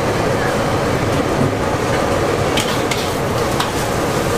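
Noodles being stir-fried in a steel wok, sizzling over a steady low rumble, with a metal spatula scraping and knocking against the wok a few times after about two and a half seconds.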